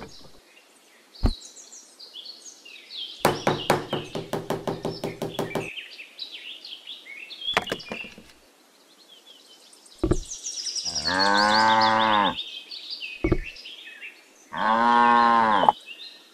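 Cow mooing twice, two long calls of about a second each in the second half. Before that come a rapidly pulsing tone a few seconds in, scattered bird chirps and a few sharp knocks.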